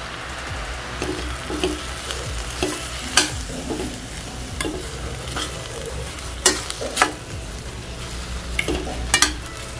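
Slotted stainless steel spatula stirring and tossing black nightshade greens and onions in a steel kadai, clinking and scraping against the pan over a low sizzle of frying oil. There are several sharp clinks, the loudest about six and a half and seven seconds in and again near the end.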